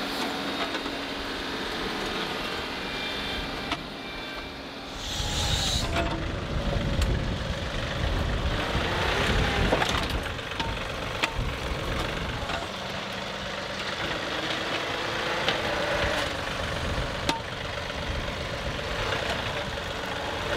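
John Deere 2038R compact tractor's diesel engine running as its front loader bucket digs and scrapes dirt in a trench. About five seconds in, the engine gets louder and heavier, with scraping and knocks of soil and rock against the bucket.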